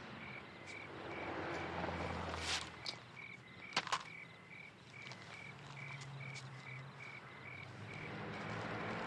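Crickets chirping in a steady rhythm, about three chirps a second, over a low hiss. There is a rustling swell early on and two sharp clicks, the second about four seconds in.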